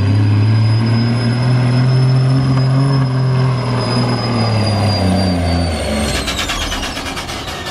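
Diesel semi truck engine running hard under full load as it drags a pulling sled, with a high turbo whistle over the engine note. Near the end the engine lets off: its note drops and the whistle falls in pitch, with a rapid fluttering.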